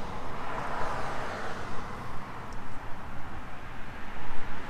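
Steady outdoor background noise: a low rumble with a hiss that fades over the first couple of seconds, with no distinct tool clicks.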